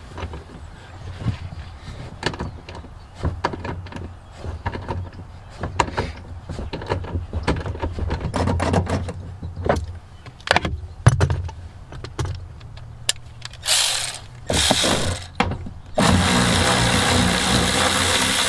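Ratchet work on the Loctited 18 mm rear-seat bolts of a Dodge Ram: metal clicking while a bolt is worked loose, then a cordless electric ratchet whirring in two short bursts and then running steadily near the end as it spins a bolt out.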